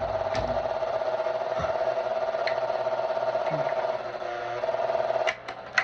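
Small guitar practice amp giving a steady, slightly pulsing buzz, the noise of a damaged amp that still works but does not play well. It cuts off with a few clicks near the end.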